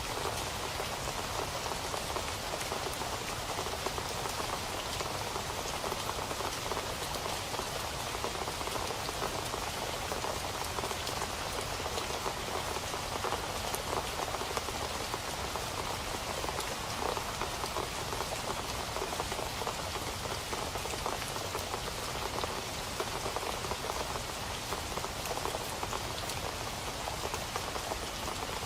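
Steady rain falling, an even hiss of many drops pattering on a surface, with no change in intensity.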